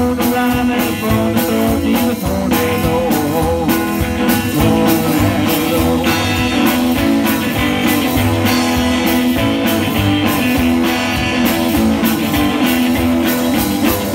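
Live rockabilly-style band playing: electric and hollow-body guitars over upright bass and a drum kit keeping a steady beat of about two strokes a second.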